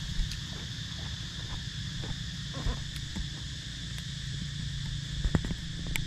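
Forest insects making a steady, high-pitched buzz under a low rumble, with a few scattered clicks and knocks, the loudest a little past five seconds in.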